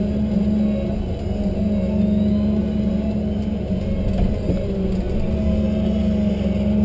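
Tigercat 1075B forwarder's diesel engine running steadily under the load of the crane hydraulics, heard from inside the cab as the crane works the grapple and swings.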